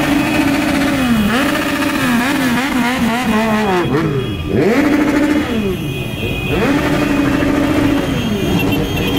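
A caravan of motorcycles riding past at low speed. Engines are revved about four times, each time climbing sharply, holding high for a second or so, then dropping away, over the steady rumble of the other bikes.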